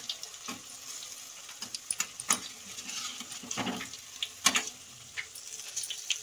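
Arbi-leaf pakoras deep-frying in mustard oil, a steady sizzling hiss, while a metal slotted skimmer turns them over with repeated sharp clinks and scrapes against the kadhai, loudest a little after two seconds and again about four and a half seconds in.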